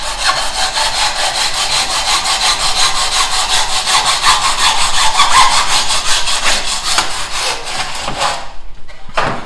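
Hand saw cutting through a soft gypsum decorative-stone tile in a miter box, in quick, even back-and-forth strokes. The sawing stops near the end, followed by a single knock.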